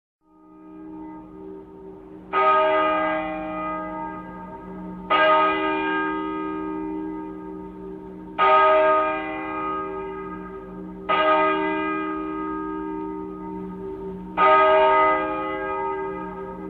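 A bell struck five times, roughly every three seconds, each strike ringing out and slowly dying away over a steady low hum; the sound fades in at the start.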